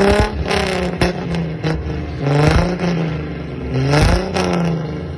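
Ford Mustang V8 being revved while standing, three rev blips that each climb and fall back, with a few sharp cracks from the exhaust between them.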